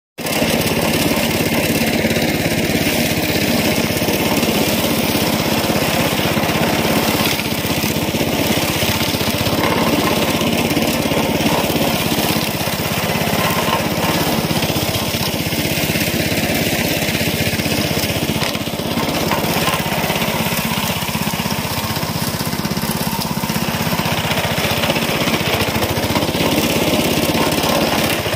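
Small engine of a wheeled, walk-behind brush cutter running steadily under load. Its modified spinning blade cuts weeds and scrapes into the soil, weeding and tilling in one pass.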